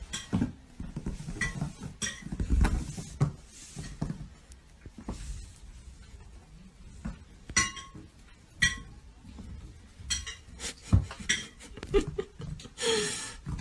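Irregular clattering knocks and clinks of household objects, with two short ringing clinks about seven and a half and eight and a half seconds in and a brief hissing burst near the end.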